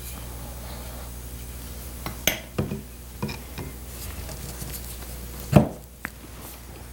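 Glue-coated wooden spindle being fitted back into an antique rocking chair's seat rail: a few light wooden knocks and clicks, then one sharp, louder knock near the end as it is seated, over a steady low hum.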